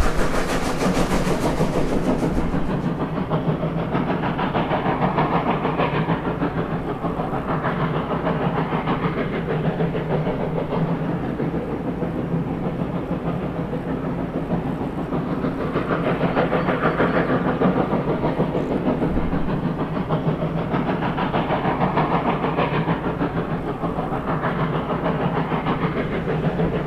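Reading & Northern 425 steam locomotive working its train: a fast, steady stream of exhaust chuffs that swells and eases at several points.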